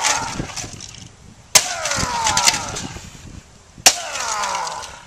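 Sledgehammer striking a Canon IP1500 inkjet printer twice, about a second and a half in and again near four seconds. Each blow is a sharp crack followed by about a second of rattling, ringing clatter that falls in pitch. It opens on the tail of such clatter from a blow just before.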